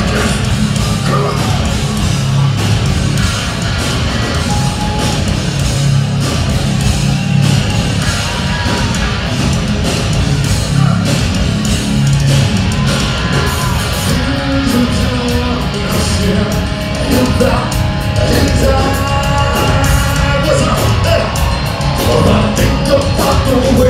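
Metal band playing live: loud distorted guitars, bass and drums. A singer's voice comes through over the band in the second half.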